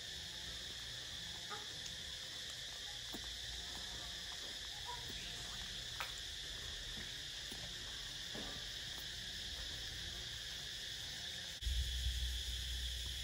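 Steady high-pitched insect chorus, crickets or cicadas, with a few faint clicks. Near the end a low rumble comes in.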